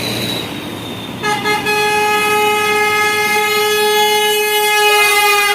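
Bus horn sounding a couple of short blips about a second in, then held as one long, steady single-pitch blast for about four seconds, over traffic noise.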